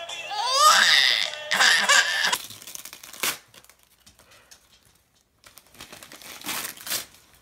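A child's high squealing laugh in rising, wavering glides. After a short gap, wrapping paper crinkling and tearing near the end.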